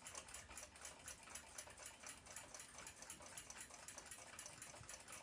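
Faint, quick, even ticking of a clock over low room hiss.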